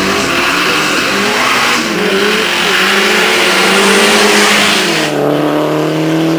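Two drag-racing cars launching hard from the start line and accelerating at full throttle, engines revving loudly. About five seconds in the sound changes abruptly to steadier, slowly rising engine tones as the cars run away down the strip.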